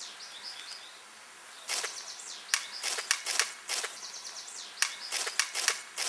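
A basketball smacking sharply again and again, bouncing and hitting the hoop, about a dozen hits starting about two seconds in, with birds chirping in the first second.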